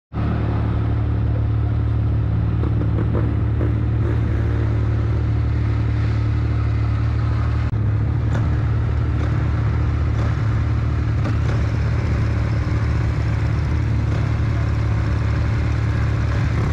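Three-cylinder engine of a Yamaha YXZ1000 side-by-side buggy running steadily as it drives along.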